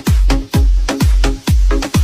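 Electronic dance music with a heavy four-on-the-floor kick drum, about two beats a second, under sustained chords.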